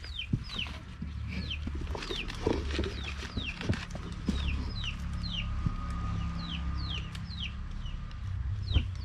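Chicks peeping: a steady run of short, high chirps, each sliding downward, about two a second.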